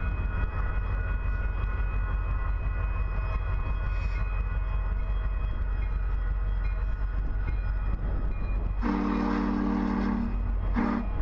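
Union Pacific SD70-series diesel locomotive approaching with a steady low rumble, then sounding its air horn: one long blast about nine seconds in, followed by a short blast near the end.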